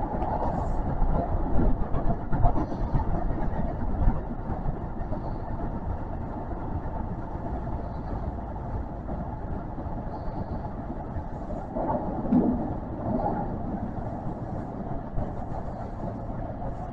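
Kintetsu electric train running on rails, heard from inside the car: a continuous rumble of wheels on track. It is louder and more uneven in the first few seconds, with a brief swell about twelve seconds in.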